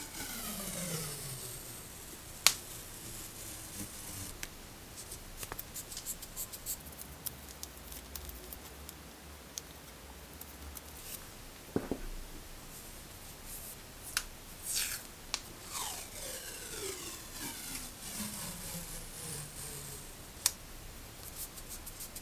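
Paper washi tape being peeled off its roll, twice, each pull a peeling sound that falls in pitch as it slows, at the start and again about two thirds through. Between the pulls, light clicks and a few sharp taps as the plastic-cored tape rolls are handled and set down on the desk.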